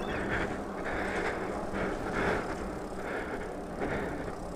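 Super73 R-Series electric bike coasting on asphalt: steady tyre rolling noise and wind on the microphone, with a faint low hum in the first couple of seconds.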